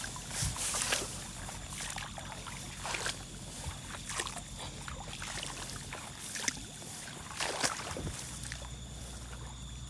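Tall grass swishing and rustling in a few irregular brushes as someone walks through it, over a steady hiss with a faint, steady high tone.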